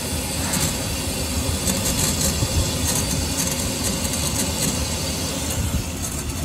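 Compressed natural gas dispenser filling a delivery truck's CNG tanks: a steady low rumble with a hiss over it as the gas flows through the hose. The fill is slowing, about 500 PSI short of full.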